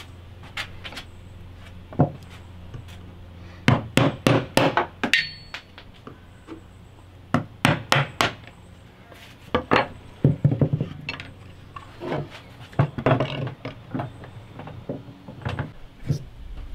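Wooden mallet striking a bench chisel in quick groups of sharp knocks, chopping a notch into a wooden board.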